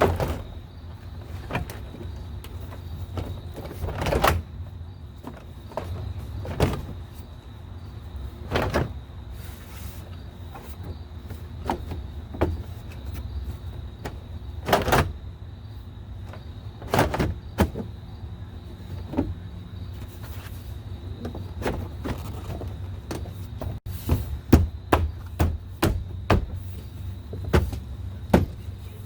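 Scattered clicks and knocks of a pickup's door trim panel and parts being handled and fitted back onto the door, quickening into a run of clicks near the end, over a steady low hum.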